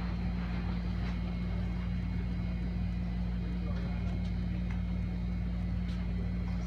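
A steady low machine hum, with a few faint snips of scissors cutting window screen.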